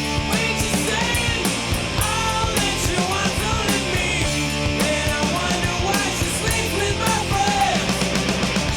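Loud punk rock music with a driving drum beat.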